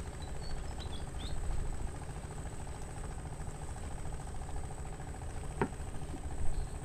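An engine running steadily at idle, low and even. A few faint high chirps come in the first second or so, and a single sharp click comes about a second before the end.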